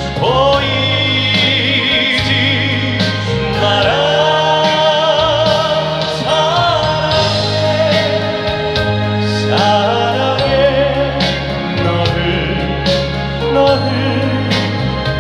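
Live band playing a slow Korean pop ballad while a male singer holds several long notes with vibrato.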